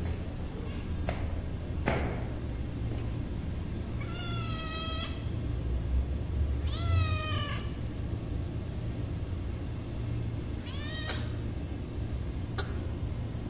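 Kitten meowing for food three times: a long call about four seconds in, a falling call about seven seconds in and a short one near eleven seconds. A couple of sharp taps come in the first two seconds, over a steady low rumble.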